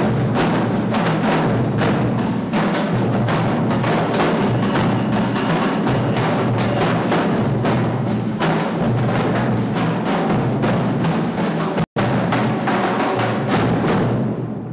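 Percussion group drumming a steady, fast rhythm on drums and other percussion, with many strikes each second; the sound drops out for an instant about twelve seconds in.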